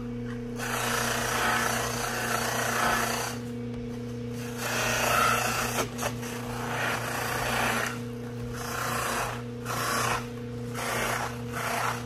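Electric bench motor humming steadily as it spins a cloth buffing wheel, with a Kydex holster's edge pressed against the wheel in repeated passes: a rasping rub that comes and goes every second or two. The friction heats and slightly melts the rough-sanded plastic edge, buffing it smooth and shiny.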